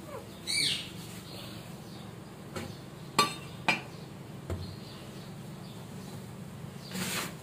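A few sharp clinks and a dull knock as stove parts are handled on a glass-topped gas hob during cleaning, with a short high squeak about half a second in and a brushing swish near the end.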